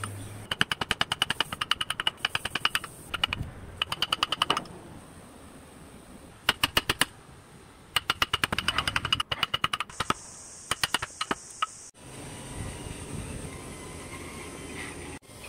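Woodcarving chisel driven into hardwood by rapid light hammer taps on its metal-capped handle, in quick bursts with short pauses, each tap a sharp click with a slight metallic ring. The tapping stops near the end, leaving only a quiet steady background.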